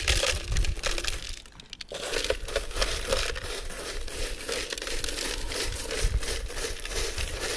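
Small gravel poured from a plastic jug onto larger stones in a plastic container: a dense, continuous rattle of pebbles. It pauses briefly about a second in and then runs as a steady stream.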